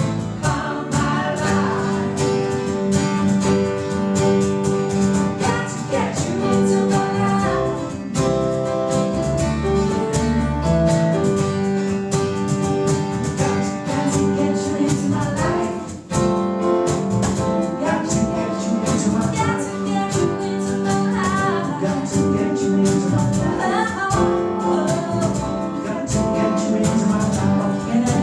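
Live music: voices singing a song with guitar accompaniment.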